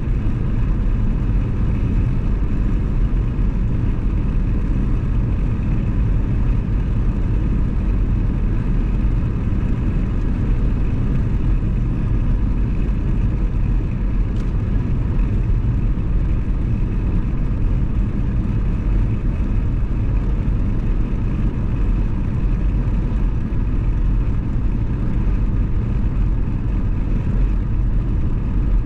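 Steady road and engine noise of a car cruising at an even speed, a constant low rumble with no gear changes or revving.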